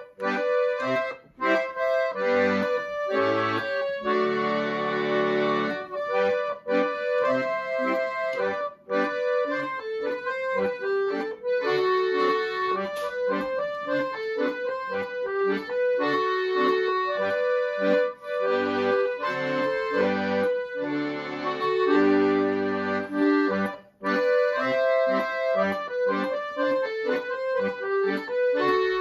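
Piano accordion playing a Polish Christmas carol solo: a melody on the right-hand keyboard over bass and chord notes from the left-hand buttons, in phrases with brief breaks between them.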